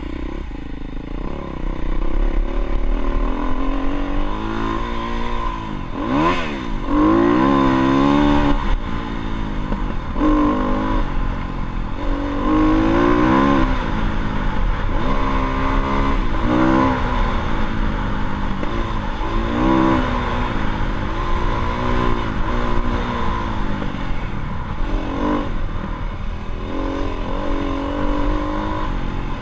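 Dirt bike engine revving as it is ridden, its pitch rising and falling again and again, over a steady low rumble.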